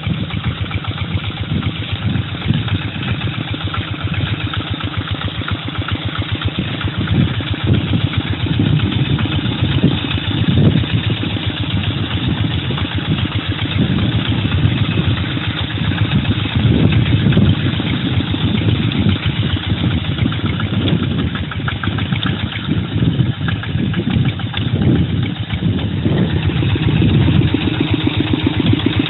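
Single-cylinder diesel engine of a two-wheel hand tractor running steadily with a rapid, even chugging beat while the tractor works through rice stubble.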